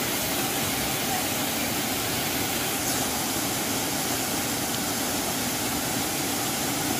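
Steady, unbroken rush of falling and flowing water from a waterfall and its rocky stream.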